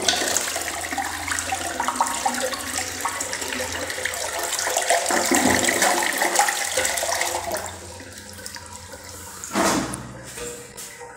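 Logasa Parati ceramic toilet flushing: a loud rush of water swirling down the bowl for about seven and a half seconds. It then drops to quieter running water.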